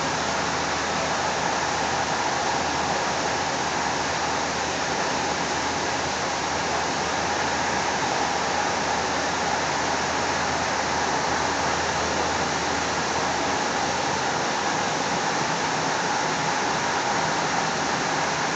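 Steady rushing noise of a Link light rail train running at speed, heard from inside the car, with no breaks or separate events.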